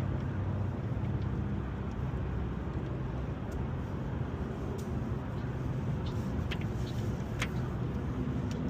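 Steady low hum of vehicle engines and road traffic, with a few faint light clicks in the second half.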